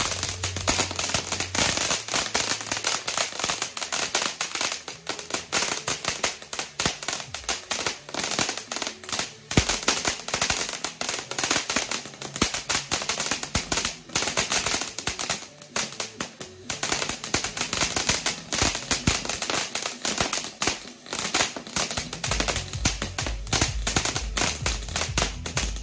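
Leegendary Fireworks Flower Festival jumbo ground fountain burning, spraying sparks with a dense, rapid crackle of tiny pops over a steady fizzing hiss.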